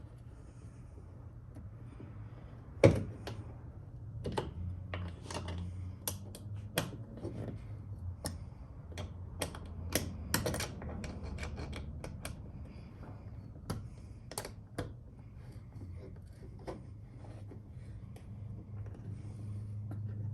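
Irregular clicks and knocks of hand tools and bolts as brackets are bolted to a plastic kayak hull, with one sharper knock about three seconds in, over a low steady hum.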